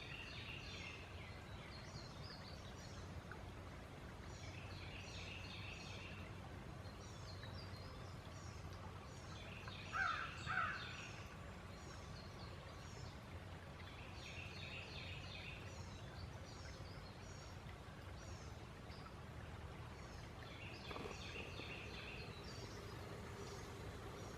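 Outdoor field ambience picked up by a trail camera's microphone: a steady low hum with groups of faint, high chirping calls recurring every few seconds, and two louder short calls about ten seconds in.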